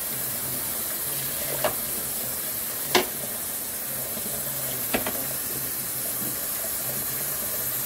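A small hand tool raking and digging through wet aquarium gravel in a glass tank, over a steady hiss. Three sharp clicks as the tool knocks against the glass, the loudest about three seconds in.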